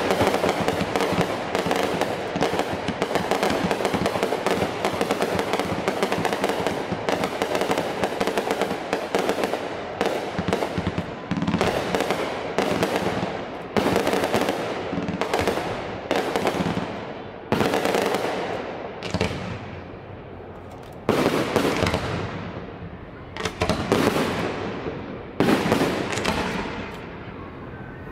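Aerial fireworks display: a dense, rapid barrage of shell bursts and crackle for about the first half, thinning into separate loud bursts, each with a long fading echo.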